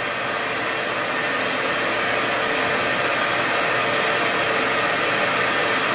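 Hair dryer running steadily: a constant rush of air with a faint steady hum.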